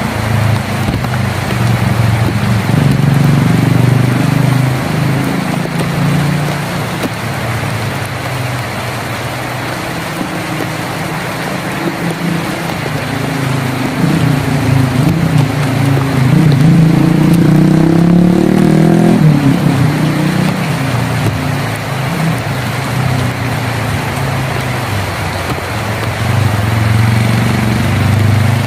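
Heavy rain falling steadily on a tin roof, with a low engine rumble from a motor vehicle underneath. Past the middle the engine note rises in pitch for a few seconds, then drops away suddenly.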